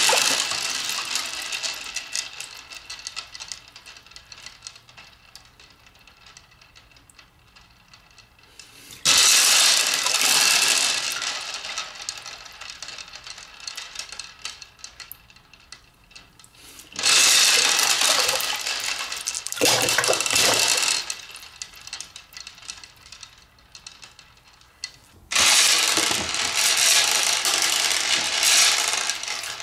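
A hand swirling water and colourful balls in a glass aquarium: a rush of splashing and rattling balls that dies away over several seconds into faint trickles and clicks, starting again about every eight seconds, three more times.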